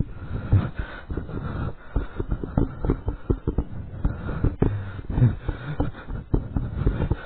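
Rapid, irregular thumps and knocks of someone moving fast with a handheld camera: footsteps and the camera jostling in the hand.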